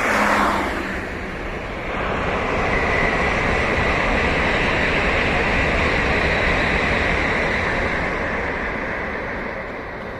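A small car passes close by at the start, its sound dropping in pitch as it goes. Then a Shinkansen bullet train runs along the nearby viaduct: a steady rushing noise that swells for several seconds and slowly fades.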